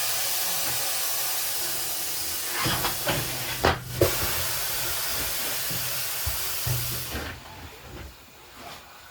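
Air rushing out of a punctured tyre as it is deflated: a loud steady hiss that stops about seven seconds in, with a few knocks around three to four seconds.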